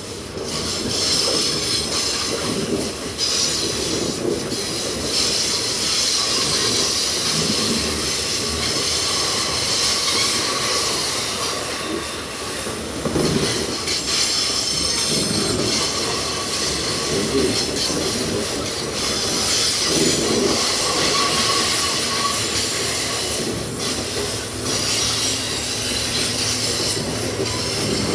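Loaded iron-ore gondola wagons rolling past on a curve, steel wheels squealing against the rails with a steady rumble and hiss. A low diesel locomotive hum comes in near the end.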